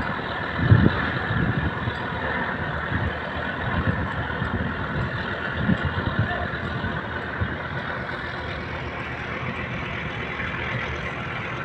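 Large wooden fishing boat's inboard engine running steadily as the boat gets under way, with a louder low thump about a second in.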